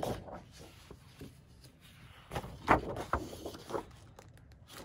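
Sheets of cardstock being handled and moved: paper rustling and sliding, with a few sharper flaps and taps, the loudest a little under three seconds in.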